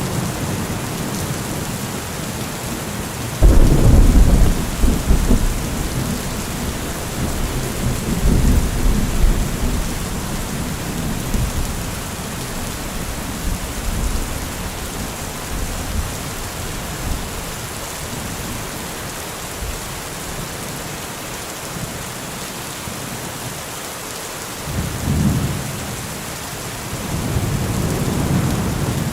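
Steady rain falling, with thunder: a sudden loud thunderclap about three and a half seconds in that rumbles on for several seconds, and softer rolls of thunder near the end.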